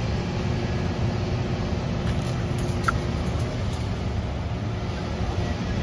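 Heavy construction machinery's diesel engine running steadily, a continuous low rumble, as a cut section of concrete drain is lifted. A short high chirp sounds about three seconds in.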